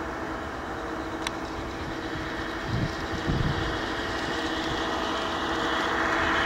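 Large-scale model diesel locomotive hauling a string of wagons along garden track, its wheels and motor running and growing steadily louder as it approaches. There is a sharp click about a second in and a couple of low thumps about three seconds in.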